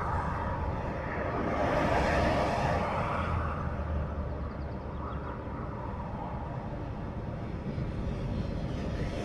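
Traffic on a multi-lane ring road: a steady rush of tyres and engines with a low rumble, swelling as a vehicle passes about two seconds in.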